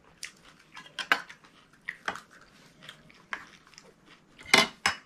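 Metal spoons clinking and scraping against ceramic bowls as pani puri shells are filled, mixed with crunches of the crisp semolina puri shells being broken open; a string of separate clinks, the loudest clatter near the end.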